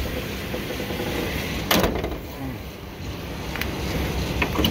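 1997 GMC Sierra pickup's engine running steadily, circulating the radiator flush just added to the cooling system. A sharp knock sounds about two seconds in, and a few light clicks come near the end.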